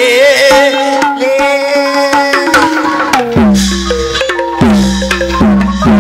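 Burmese hsaing ensemble playing: a wavering, gliding melody line for the first half, then from about three seconds in, deep tuned drum strokes ring out a few times, picking up speed near the end.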